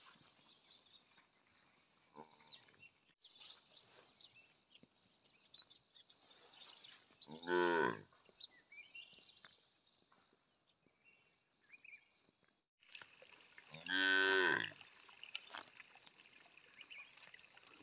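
Cattle mooing: two short, loud moos, one about seven and a half seconds in and one about fourteen seconds in, each under a second long, with a fainter low call around two seconds in.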